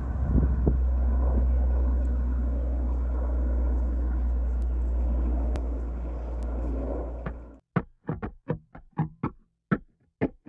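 Propeller-driven water bomber flying overhead, a steady low engine drone that cuts off abruptly about seven and a half seconds in. A quick run of short, sharp plucked notes follows as guitar music begins.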